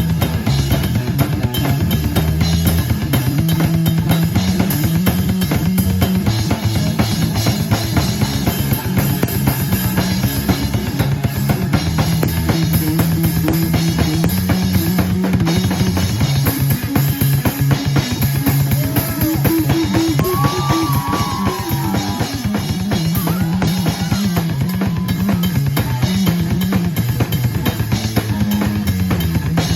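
Live rock band playing, with the drum kit out front (bass drum, snare and rimshots) over a stepping low bass line. A brief wavering higher melody comes in about twenty seconds in.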